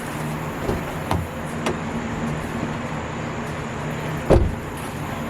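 A few light clicks and one louder thump about four seconds in, as the dashboard air box is worked loose by hand, over a steady low hum.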